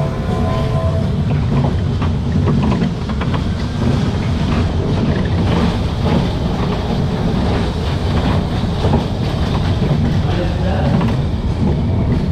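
CAM Baby Kart powered junior coaster train rolling along its track, ridden from the back row: a steady low rumble with rapid clicking and clatter from the wheels.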